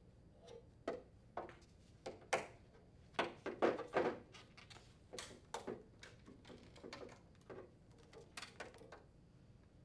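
Handling noise from an old refrigerant solenoid coil being slid off a heat pump's reversing valve and drawn out with its wires by gloved hands: a string of light clicks, knocks and rustles, the sharpest about two seconds in.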